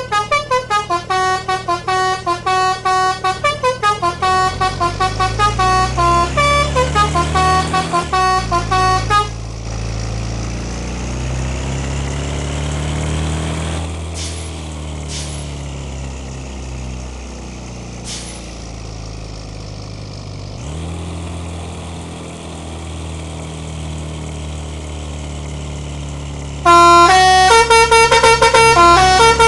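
Telolet bus horn, a multi-tone air horn playing a rapid melody of short, stepping notes for about nine seconds. Then the horn stops and the bus engine is heard running, rising in pitch and settling. The horn melody starts again near the end.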